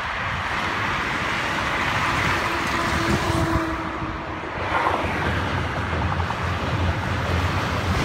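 Multi-lane expressway traffic: a steady wash of tyre and engine noise from passing cars, buses and lorries. A low engine drone from a heavier vehicle builds in the second half.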